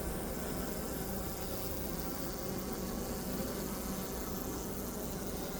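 Honeybees buzzing around an open hive: a steady, dense hum of many bees.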